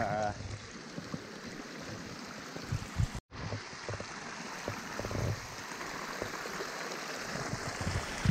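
Rainwater running down a forest trail in a small stream, a steady rushing trickle, with scattered low thumps. The sound cuts out completely for a moment a little after three seconds in.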